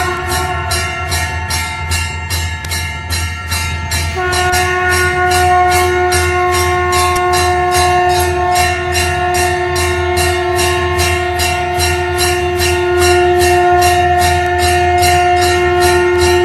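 Conch shell (shankh) blown in a long, steady note with a pause for breath in the first few seconds, then held for the rest. Under it a temple bell is rung fast and evenly, about three strokes a second.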